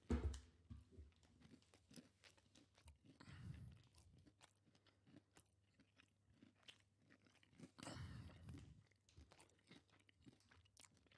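Faint close-mic chewing of crispy fried chicken, with a crunchy bite at the start and soft crunching and mouth clicks after.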